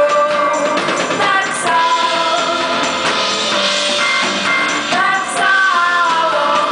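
A live band performing: a woman singing lead into a microphone over a drum kit and the rest of the band, the singing and playing going on without a break.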